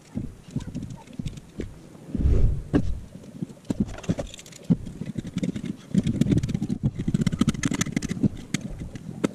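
Tools and small metal parts being handled on a workbench: scattered knocks and clicks, a heavy thump about two seconds in, then a busier rattle and clatter of metal bits from about four seconds on.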